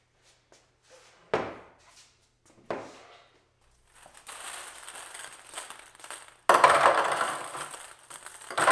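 Two separate knocks, then rustling and clattering handling noise that turns loud about six and a half seconds in, ending in a sharp knock: a table tennis robot and a ball pickup basket being handled.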